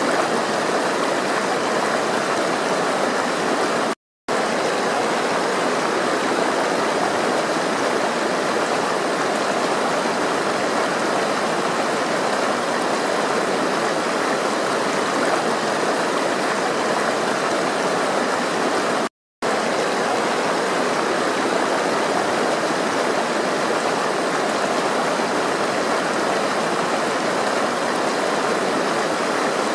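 Steady flowing water, a continuous even rush, cut off to silence for an instant twice, about four seconds in and again near twenty seconds.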